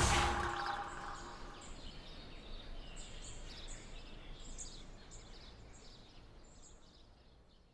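The rumble of a loud boom dies away over the first second or so. Then faint, short, high bird chirps repeat, fading out to silence near the end.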